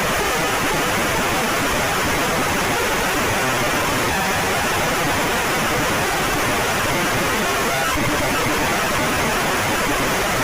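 Loud, steady static noise: an even hiss spread across all pitches, with no tone, rhythm or change in level.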